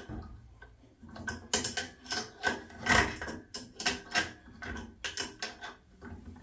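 Hand tool tightening the fixings of a boiler fan: a run of irregular sharp metallic clicks, two or three a second, starting about a second in.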